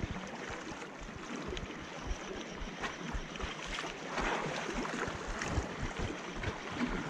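Sea water washing and lapping against shoreline rocks, with a brief swell of splashing about four seconds in. Wind buffets the microphone unevenly.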